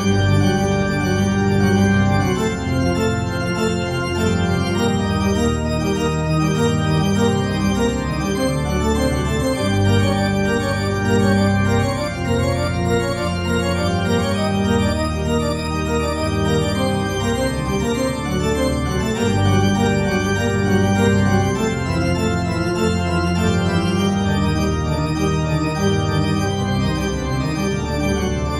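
Accompaniment music of slow organ chords, each held for a second or two before moving to the next.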